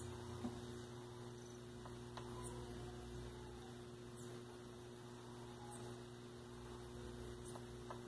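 Faint, steady mains electrical hum from the energized washing machine control board and components on the test bench, with a few faint high chirps now and then.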